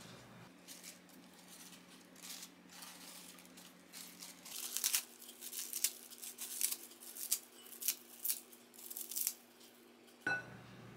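Fresh lettuce leaves being torn by hand into a glass bowl: a run of short, crisp tearing rustles, about two a second, after some fainter handling. Near the end comes a single light clink with a short ring.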